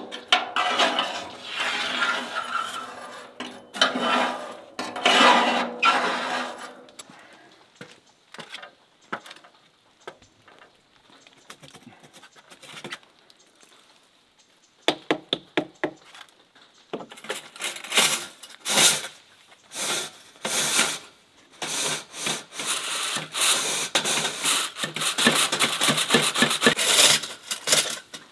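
A metal rod scraping soot out of a wood stove into a metal dustpan, then quieter stretches with a few knocks. From about halfway in, a quick run of short, repeated scraping strokes as the stainless steel stovepipe is cleaned.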